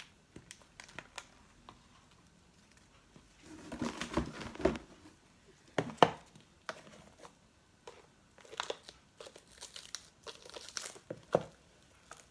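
Plastic takeaway food packaging being handled: irregular crinkling and rustling, with a few sharp clicks and knocks from containers, the sharpest about six seconds in.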